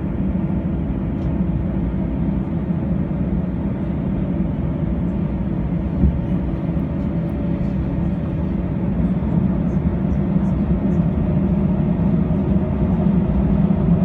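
Steady cabin hum of an Airbus A321 heard from inside the cabin as the airliner moves slowly on the apron: a low drone with a brief knock about six seconds in, growing a little louder in the last few seconds.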